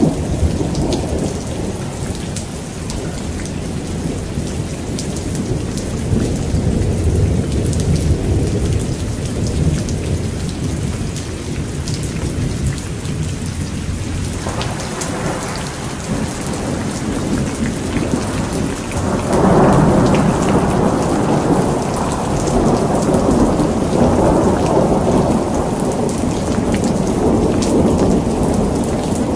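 Heavy rain falling steadily, with a fine patter of drops over a continuous low rumble of thunder. The thunder swells about halfway through, then grows louder and rolls on from about two-thirds of the way in.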